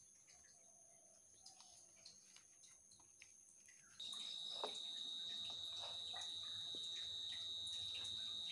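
Faint clicks and scrapes of a plastic spoon stirring chopped boiled potatoes in a bowl. About four seconds in, the background changes suddenly to a steady high-pitched whine, with small clicks of the potato mixture being worked.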